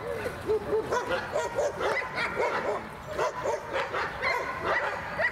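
Dog barking excitedly in short, high calls in quick succession, without a break.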